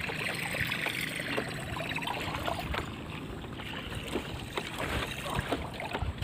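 Water lapping and trickling against a small boat's hull, with a few light clicks.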